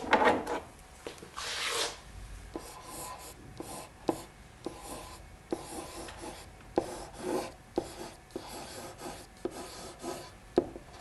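A pen writing a word on an interactive whiteboard: a series of short scratching, rubbing strokes, with one longer rub about a second and a half in.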